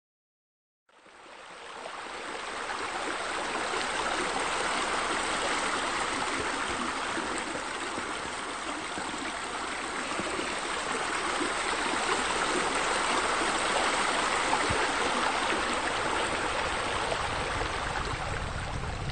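Steady rush of running water that fades in about a second in.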